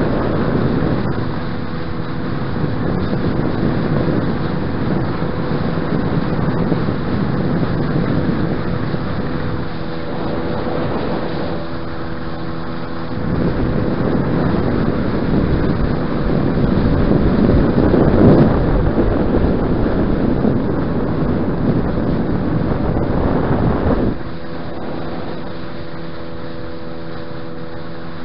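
Tohatsu outboard motor running steadily while the boat is underway on choppy water, with wind buffeting the microphone and water rushing past the hull. The wind and water noise grows louder around the middle and drops back suddenly about 24 seconds in, leaving the engine's steady drone clearer.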